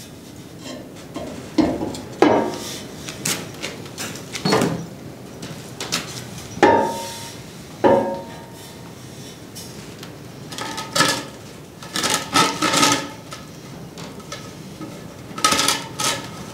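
A hydraulic tank made of 6-inch steel pipe knocking and scraping against a steel press frame as it is shifted and balanced upright. Irregular metal clanks, two of them ringing briefly, with clusters of rattling knocks in the second half.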